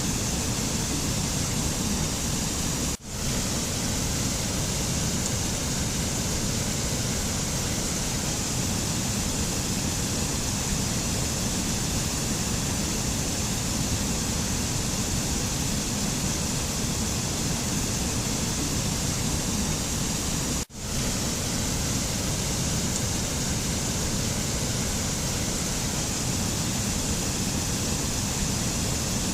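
Steady, even rushing noise, a mountain nature ambience of the waterfall or wind kind, with no tune or rhythm. It drops out for a split second twice, about 3 seconds in and again about 21 seconds in.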